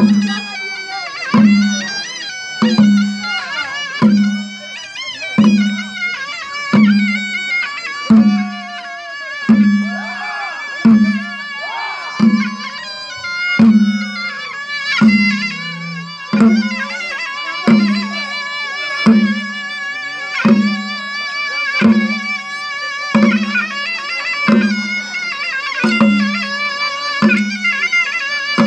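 Karbi traditional folk dance music: a wind instrument holding long, wavering melody notes over a drum struck steadily about once every second and a half.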